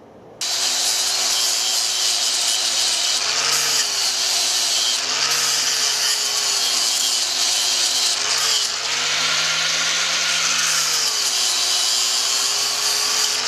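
Electric power tool running continuously on metal, its motor pitch dipping and recovering several times as it is loaded. It starts abruptly and stops just after the end.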